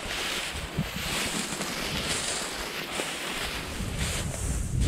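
Wind blowing, a steady rushing noise that swells and fades a little.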